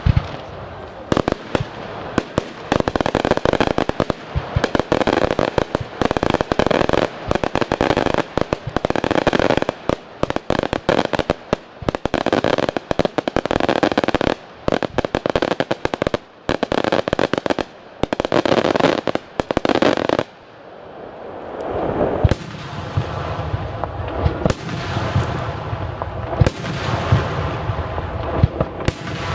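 Daytime fireworks: a ground barrage of firecrackers crackling in a dense, rapid run that stops abruptly about twenty seconds in. Then aerial shells bursting overhead, separate bangs over a low rumble.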